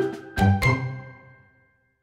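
Background music ending: a couple of last notes over a bass line, then a final chord that rings and fades away about a second and a half in.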